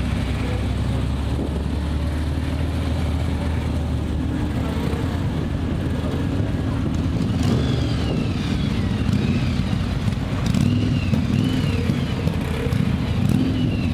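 Several motorcycle engines running at low revs as the bikes pull away and ride off one after another, a steady low engine sound throughout. Short high arching chirps join in over the second half.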